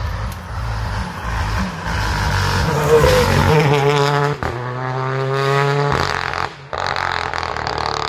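Rally car engine at full throttle, pitch climbing as it accelerates and briefly dropping at gear changes, about four and a half seconds in and again near six and a half.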